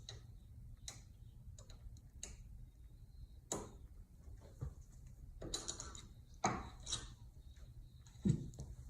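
Irregular small clicks and taps of an Allen wrench being fitted to and turning the Allen screw that holds on the front cover of an Ultrex trolling motor, with a few louder knocks in the second half.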